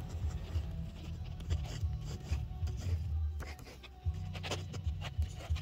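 Rubbing, scraping and muffled bumping of a phone's microphone being handled close up, with a short lull a little past the middle.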